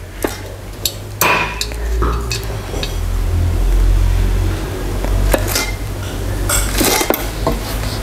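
Metal chair-frame tubes clinking and knocking as they are handled and fitted together, a scatter of sharp taps over a low rumble that swells in the middle.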